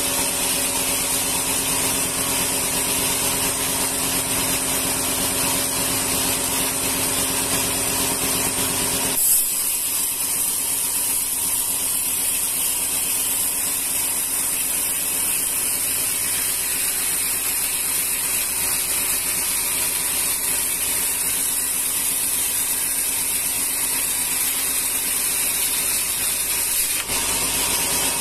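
Sawmill band saw ripping rengas timber into planks: a loud, steady machine noise with a high hiss from the blade and a hum from the drive. About nine seconds in the lower hum drops away, leaving mostly the high hiss, and it comes back shortly before the end.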